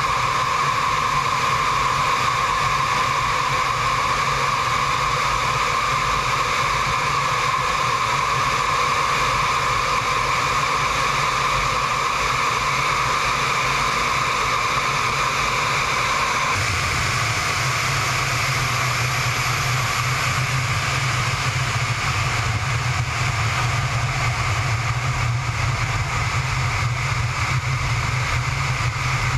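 Su-33's twin turbofan engines and airflow in flight, heard from a camera mounted on the aircraft: a steady rush with a high whine. The tone changes abruptly about 17 seconds in, the whine dropping away and a deeper rumble taking over.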